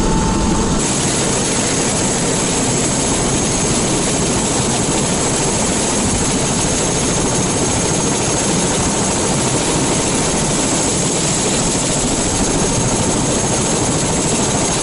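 Turbine helicopter running on the ground with its rotor turning: a loud, steady rush of rotor and engine noise with a high, steady turbine whine, heard close from outside the cabin.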